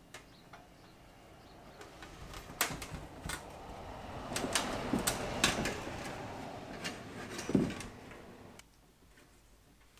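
Aluminum inner fender panels and their hardware being handled and fitted together: a run of sharp metal clicks and knocks over a rustling, scraping noise that builds up and then stops suddenly near the end.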